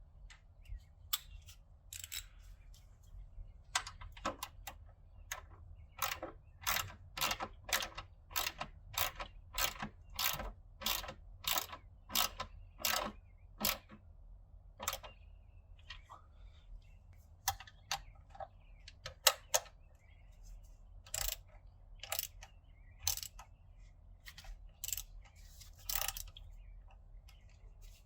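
Hand ratchet clicking as it runs down a pitch stop mount bolt with a 14 mm socket. A quick regular run of strokes, about two a second, fills the first half, then slower, scattered strokes.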